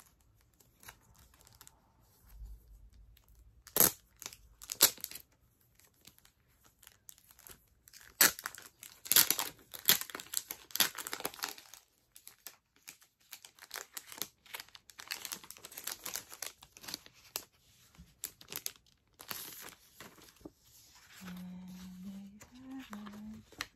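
A clear plastic packaging sleeve crinkled and pulled open by hand, with irregular crackling and tearing and a couple of sharp clicks about four seconds in.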